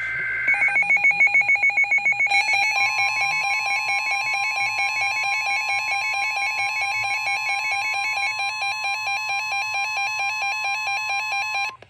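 Several NOAA weather radios going off for a severe thunderstorm warning. A brief warble of data tones opens it, then the radios' rapid electronic beeping starts, with more beep patterns joining after about two seconds. The steady 1050 Hz Weather Radio warning tone sounds under the beeping from about three seconds in, and everything cuts off together near the end.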